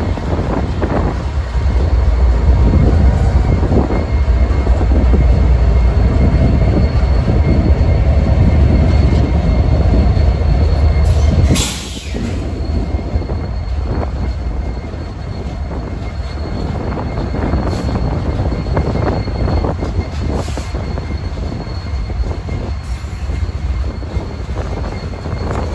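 Union Pacific diesel locomotives of a freight train passing close by, their engines rumbling deep with a thin steady high squeal over them. About halfway through the rumble drops sharply, and the passing continues at a lower level with scattered clicks from the wheels.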